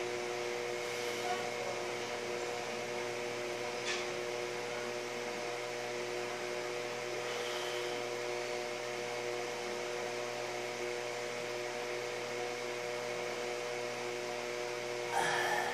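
Steady room hum made of several steady tones over a low hiss, with a faint click about four seconds in and a brief louder noise just before the end.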